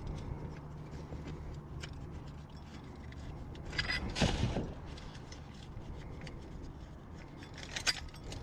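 Scrap metal being handled and worked apart by hand: light clicks and rubbing, with a louder scrape about four seconds in and a sharp click near the end.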